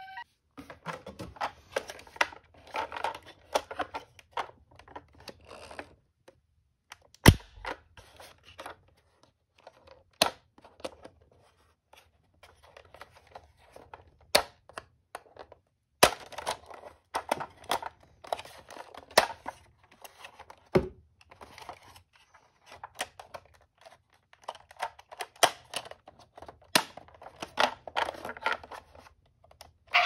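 A plastic toy ambulance being handled in a cardboard box: scattered clicks and knocks of hard plastic, with bouts of rustling and scraping against the cardboard and a few sharper clacks.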